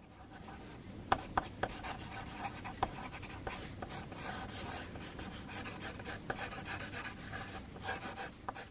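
Tombow MONO eraser rubbing back and forth over a pencil sketch on paper, a dry scratchy rubbing with a few sharp ticks about a second in.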